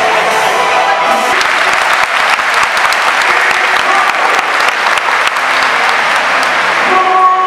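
Large stadium crowd applauding: a dense, loud patter of many hands clapping. Music plays under it at the start and again near the end.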